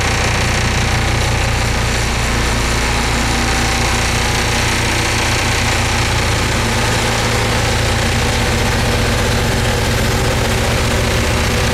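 Caterpillar CS-583C single-drum roller's diesel engine running steadily with a deep, even hum as the machine moves slowly past close by.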